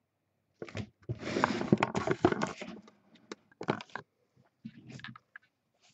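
Handling noise: a dense stretch of rustling and scraping from about one to three seconds in, then scattered shorter scrapes and a few sharp clicks.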